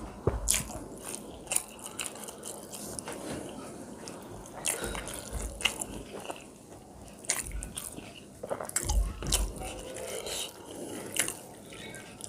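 Close-miked eating sounds: chewing with wet smacks and sharp mouth clicks at an irregular pace, and a few low thumps.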